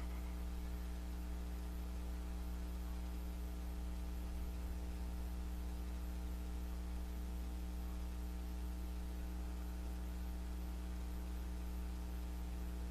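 Steady low electrical hum with a faint hiss, unchanging throughout; no thunder or other events.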